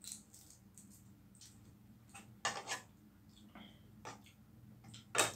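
Small clicks and crackles of a balut's (boiled duck egg's) shell being cracked and peeled by hand. There are a few louder knocks, a pair near the middle and one near the end, as a spoon works in a small ceramic bowl.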